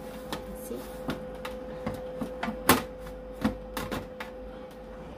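Metal baking tray pushed and set onto the rails of an oven, with a run of clicks and metallic knocks, the loudest about halfway through. A steady hum runs beneath.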